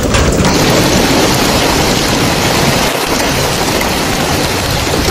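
Hailstorm: hail and rain pelting down as a loud, steady noise, turning brighter about half a second in.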